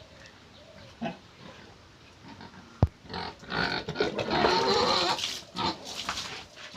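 Yorkshire pigs in a pen vocalizing loudly for about three seconds, starting just after a single sharp knock partway through.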